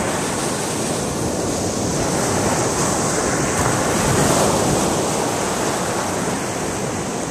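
Ocean surf washing ashore in a steady rush, with wind buffeting the microphone.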